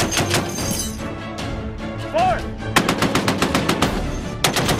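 Browning M2 .50-caliber heavy machine gun firing short bursts of rapid, evenly spaced shots: one burst at the start, a pause of nearly two seconds, then two more bursts.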